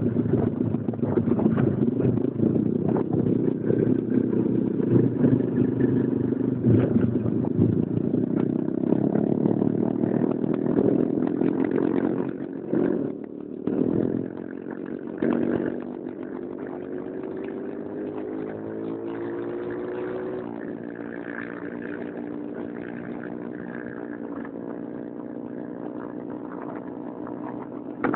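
Motorcycle engine running while riding. The engine drops off briefly a couple of times about halfway through, then runs quieter, its pitch climbing slowly before it holds steady.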